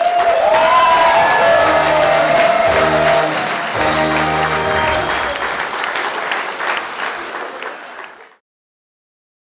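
Audience applauding loudly over the closing chords of music. Everything fades out about eight seconds in.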